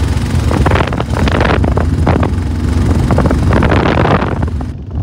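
Motorcycle engine running steadily as the bike rides along a rough road, a low rumble, with two louder bursts of rushing noise about a second in and again between three and four seconds in.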